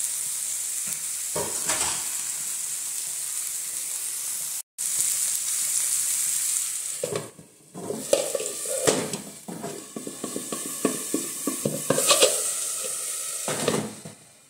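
Chicken with onion and peppers sizzling in a frying pan with a steady hiss. From about halfway, there are many short knocks and rattles as the pan and its glass lid are handled, with the sizzle coming and going, and the sound drops right at the end.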